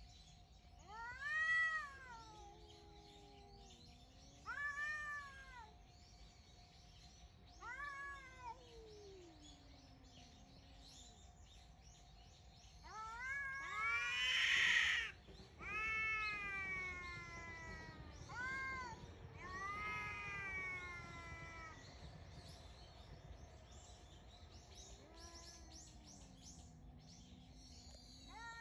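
Two cats yowling at each other: long wailing calls that rise and fall in pitch, one voice higher and one lower and sliding downward, repeated every few seconds, with one loud, harsher cry about halfway through.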